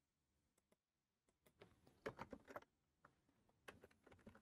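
Faint computer keyboard typing: short runs of keystrokes, busiest about two seconds in and again near the end.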